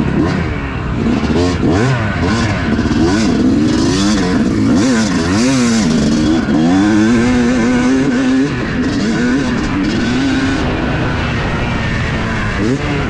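Yamaha YZ250 two-stroke single-cylinder dirt bike engine ridden hard, its pitch rising and falling over and over as the throttle is worked, then held high for a few seconds before easing off near the end.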